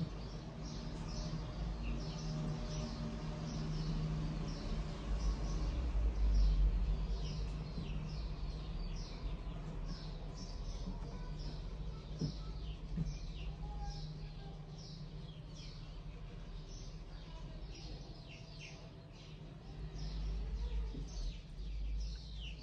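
Small birds chirping continuously: short falling chirps a few times a second, over a low steady hum.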